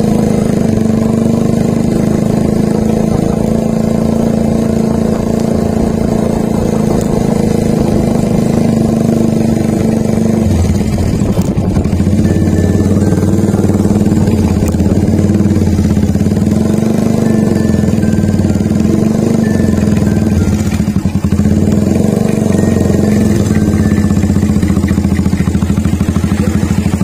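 Yamaha Vixion motorcycle's single-cylinder engine running under way at a steady cruise. The engine note shifts about ten seconds in and dips briefly about twenty-one seconds in.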